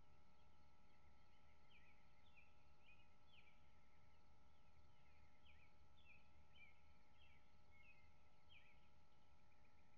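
A bird singing faintly in the dark, a loose string of short, quick chirps repeated every half second or so, over a steady faint hum.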